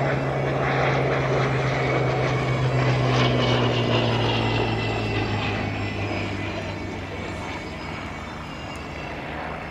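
Four Wright Cyclone radial engines of a Boeing B-17 Flying Fortress droning as the bomber flies low on landing approach. The sound is loudest about three seconds in, then slowly fades.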